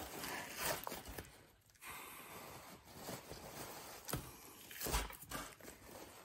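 Faint rustling and scraping of a paper towel gripping the membrane as it is peeled off a rack of baby back pork ribs. A few soft knocks come through, loudest just under a second in and about five seconds in.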